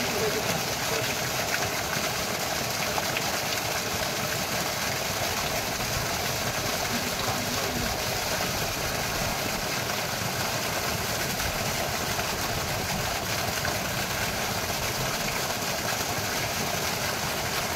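Steady rush of water from a submersible pump's discharge pipe, the full-bore jet splashing down onto wet, muddy ground.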